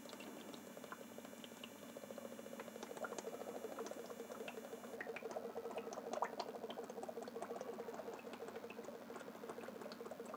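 Cooking oil poured in a thin stream from a bottle into a non-stick kadai on a lit gas stove: a faint steady trickle with scattered light ticks.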